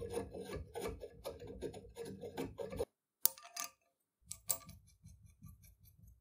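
Rapid metal ticking and clicking from a hand-cranked grinder's crank handle and arm being worked. The ticking stops about three seconds in, two sharp clicks follow, then softer ticking fades out.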